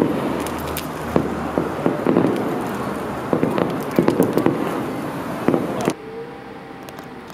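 Aerial fireworks going off in quick succession: sharp cracks and pops over a continuous rumbling wash of distant bangs. About six seconds in it cuts off suddenly to quieter street traffic noise.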